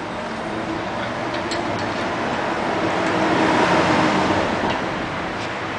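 A road vehicle going by: a steady rush with a faint hum that swells to a peak about four seconds in, then eases off.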